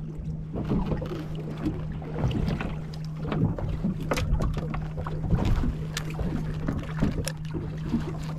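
Choppy sea water slapping and knocking irregularly against a small boat's hull, with wind on the microphone and a steady low hum underneath.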